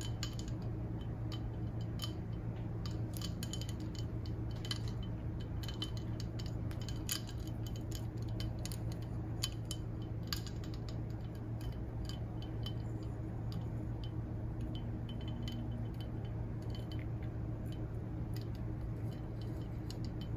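Faint, scattered light clinks and ticks of glassware over a steady low hum.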